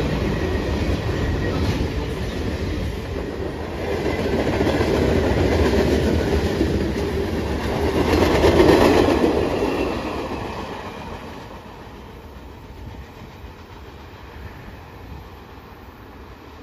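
Freight train cars rolling past on the rails, the steady wheel-on-rail rumble loudest about halfway through as the rear cars go by, then fading as the end of the train moves away.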